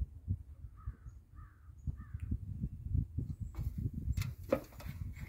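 A bird calling three times, about half a second apart, over a low, uneven rumble on the microphone.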